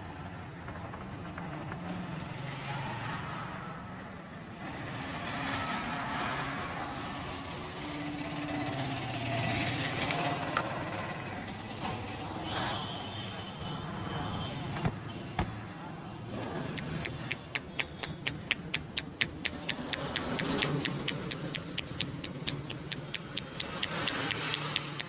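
Street traffic noise with faint voices. About two-thirds of the way through, a fast, even patter of sharp slaps starts, about five a second: a barber's hands tapping rhythmically on the head during an Indian head massage.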